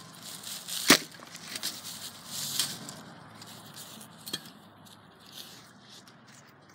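A single sharp knock about a second in. Then rustling and crackling in dry grass and leaves, and a smaller click a few seconds later.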